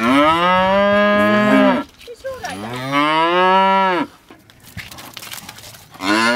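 Cattle mooing: three long, loud moos, the third starting near the end.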